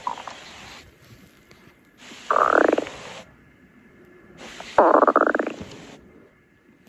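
A stomach-growl sound effect repeating, heard twice about two and a half seconds apart. Each growl is a short gurgling rumble of under a second that sweeps up in pitch, with a hiss that switches on just before it and off just after.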